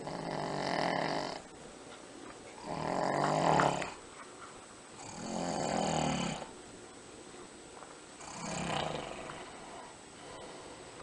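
A person snoring: four snores, each lasting about a second, a few seconds apart.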